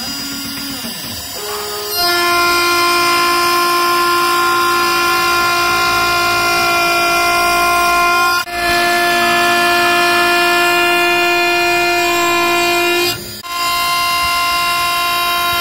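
End mill in an Ox CNC router's spindle cutting aluminium on an aggressive pass, with a loud, steady whine. The first two seconds are quieter, and the whine drops out briefly about eight and a half seconds in and again about thirteen seconds in.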